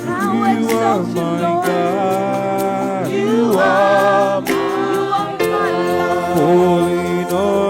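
Worship music: a singing voice holding and sliding between long notes over sustained accompaniment.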